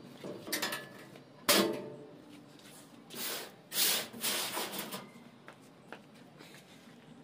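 A sharp knock about a second and a half in, then a few seconds of rough rubbing and scraping against a welded steel cargo box.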